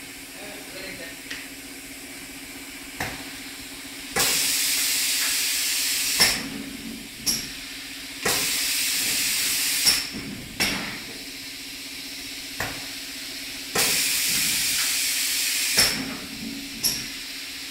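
Two automatic compressed-air spray guns on a single-axis reciprocator spraying paint in three hissing spells of about two seconds each. Sharp clicks come at the ends of the spray passes and between them, over a steady machine hum.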